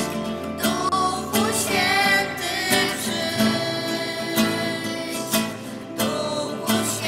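Music: a song with guitar accompaniment and a singing voice.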